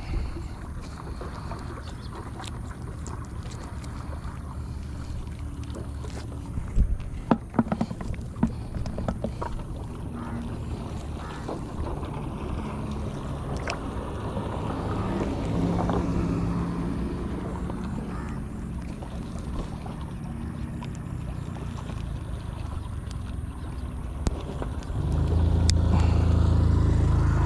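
A motor vehicle's engine running nearby as a steady low hum, getting louder near the end. A few sharp clicks and rustles from the gill net and fish being handled about seven seconds in.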